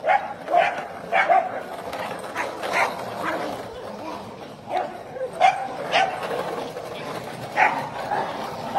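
Small terriers barking and yapping in play: about ten short, sharp barks at irregular intervals.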